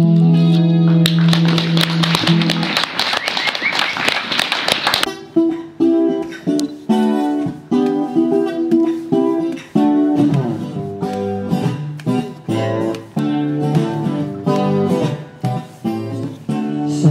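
Guitar playing with no vocals: a held chord at first, a few seconds of noisy rushing sound over it, then a line of picked single notes leading into the next song.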